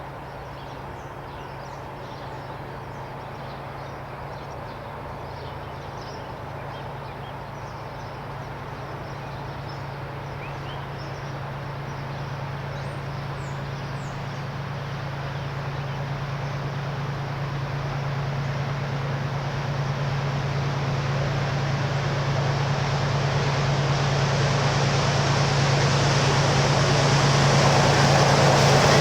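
Diesel locomotive engine working hard as train 941 pulls away, a steady low drone that grows steadily louder as the locomotive draws nearer.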